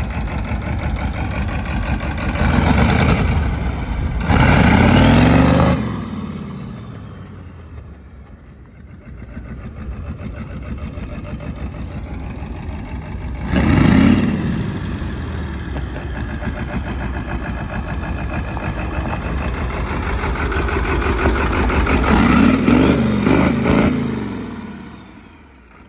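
Turbo-diesel engine of a hot-rodded vintage Ford tractor, running through a straight stack and revved hard in short bursts. The bursts come about 3 and 5 seconds in, again at about 14 seconds and near the end. Each time the pitch climbs and then falls back to a lower running note.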